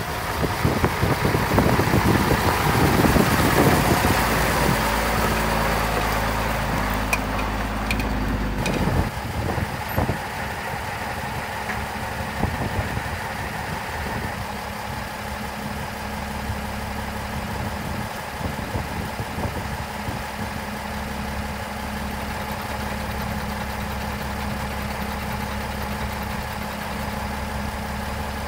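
1980 Scania LS 111's 11-litre six-cylinder diesel engine running. For the first nine seconds or so it is louder, with wind noise on the microphone; after an abrupt change about nine seconds in it idles steadily.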